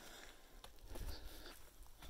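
Faint footsteps of a hiker on granite rock and grit: a few soft scuffs and taps, over a low rumble.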